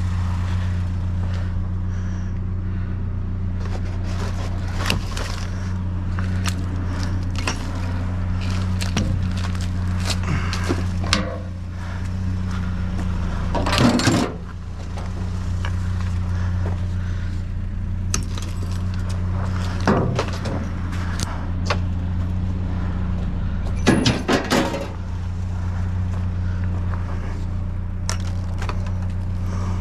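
Steady low engine hum under scattered metal clanks and rattles as steel scrap is pulled out of a dumpster with a magnet stick. The loudest clatters come about 14 and 24 seconds in.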